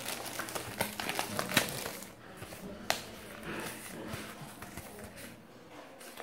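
Clear plastic bag crinkling and paper rustling as a warranty booklet and a paper CD sleeve are pulled out and handled. The crackling is dense for the first couple of seconds, then thins to occasional rustles and taps.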